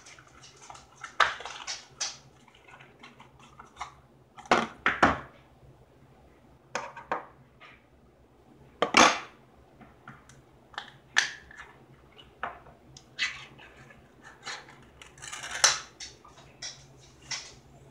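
A small boxed tin of smoked oysters being unpacked and opened: cardboard box handled and opened, the metal tin set down and knocked on a wooden table, and its pull-tab lid peeled back. A string of separate clicks, scrapes and metallic taps, a few of them sharp and loud.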